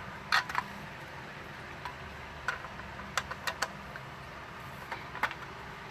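Scattered light clicks and small rattles of handling, as a key ring with a Simplex reset key is picked up and readied, over a steady low hum; a sharper click comes near the end.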